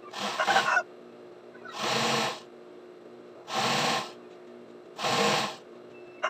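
Juki industrial sewing machine stitching in short spurts, four runs of about half a second each, roughly a second and a half apart, with a steady motor hum between them.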